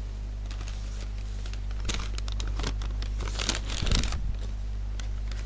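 Paper and plastic food bags rustling and crinkling as they are handled, in scattered bursts that are loudest about four seconds in, over a steady low electrical hum.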